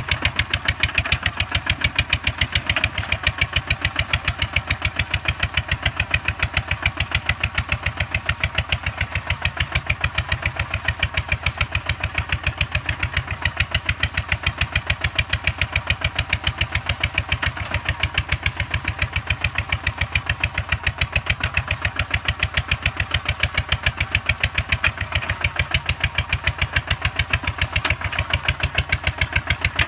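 Two-wheel walking tractor's single-cylinder diesel engine running steadily with a rapid, even beat of firing strokes. It is working under load, pulling a plow through wet rice-field mud.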